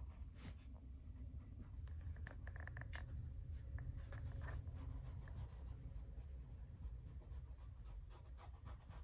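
Cardboard moving box being handled on a carpeted floor: scratching, rubbing and light scraping against the cardboard, with the box shifted and turned.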